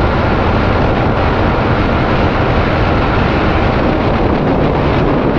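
Steady rush of wind over a helmet-mounted microphone on a motorcycle at highway speed, with the Yamaha R15 V3's single-cylinder engine and Akrapovic exhaust running underneath.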